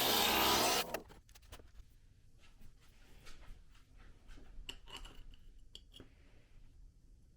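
Stained-glass grinder running, switched off about a second in. Then scattered soft clicks and light taps of small glass pieces being handled.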